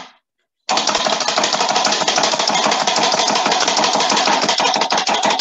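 Small electric mini chopper's motor running steadily with a fast buzz while it chops onion and garlic, starting just under a second in after a brief knock.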